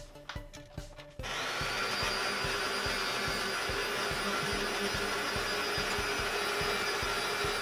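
Electric hand mixer switched on about a second in, spinning up to a steady whir as its beaters whisk eggs and sugar in a glass bowl. Before it starts, only a background music beat.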